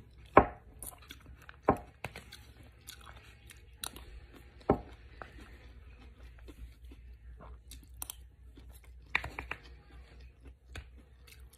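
A person chewing food close to the microphone, with several sharp clinks of a metal spoon and fork against a ceramic plate.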